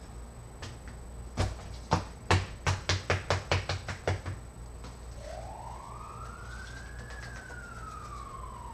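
A quick run of about ten sharp knocks, coming faster toward the end, followed by a single siren wail that rises in pitch and then slowly falls.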